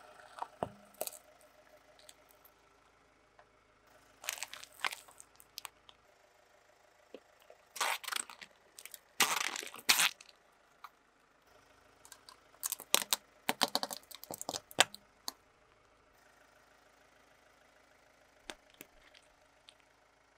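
Plastic toys and a packet cracking, crunching and crinkling as they are crushed under a car tyre, in several separate bursts with pauses between; the loudest bursts come in the middle of the stretch.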